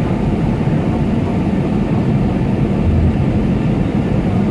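Steady in-flight cabin noise of a Boeing 727 Super 27 jet: a loud, even rumble of engines and airflow heard from inside the passenger cabin.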